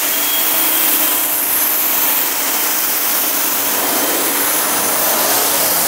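Active 2.0 electric pressure washer rinsing a car: a loud, steady hiss of the water jet spraying the bodywork, with a faint steady hum of the pump motor under it.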